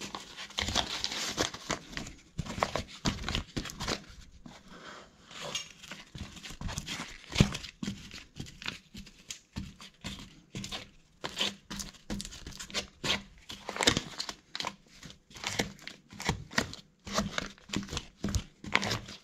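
Paper towel crumpling and rubbing in irregular rustles as silicone is smeared over the raw chipboard edge of a worktop basin cutout to seal it, with one sharper knock about seven seconds in.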